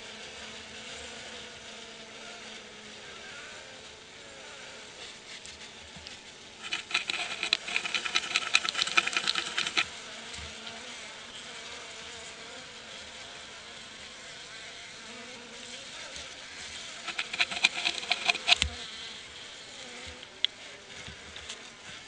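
Honey bees humming steadily in the hive, broken twice, about a third of the way in and again later, by a few seconds of rapid scratching on the wooden landing board. The scratching is a skunk raiding the hive: it scratches at the entrance to draw the guard bees out and eat them.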